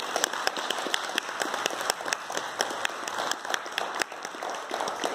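Audience applauding, with many separate hand claps heard.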